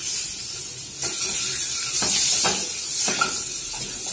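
Whole boiled eggs sizzling as they shallow-fry in hot sunflower oil with turmeric, with a wooden spatula scraping and knocking against the kadai a few times as they are turned. The sizzle grows louder about halfway through.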